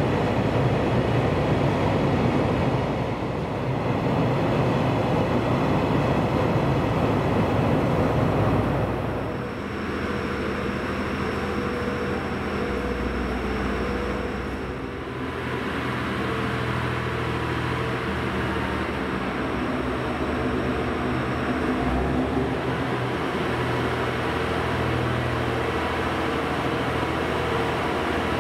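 Train noise in a railway station: a dense rolling rumble for about the first nine seconds, then a steadier hum with a low droning tone.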